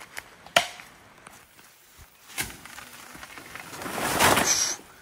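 Two sharp cracks about two seconds apart, then a loud rustle of large leaves and undergrowth being pushed through for about a second near the end.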